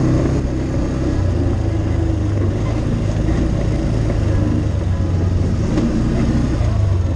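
ATV engine running steadily while the quad drives along a dirt trail.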